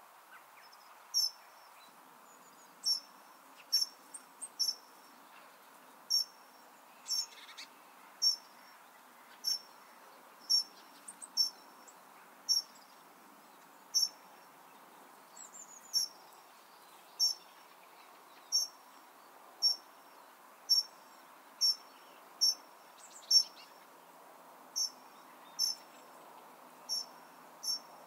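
A cricket chirping: sharp, high chirps repeated roughly once a second at uneven intervals, over a faint steady background hiss, with a few brief bird notes.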